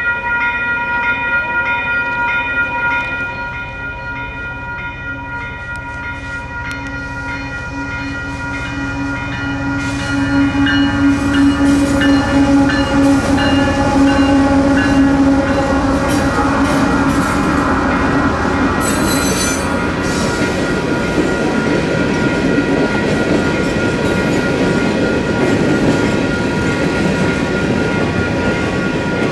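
A grade-crossing warning bell rings in repeated strokes while an approaching train's horn sounds, loudest about ten to sixteen seconds in. The train then rumbles through the crossing, its wheels clattering over the rails, with a brief high squeal or hiss near the two-thirds mark.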